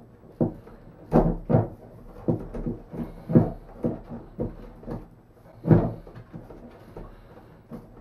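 Vacuflush marine toilet being wrestled loose and lifted off its mount: a dozen or so irregular knocks and clunks against the fiberglass floor, the loudest a little past halfway.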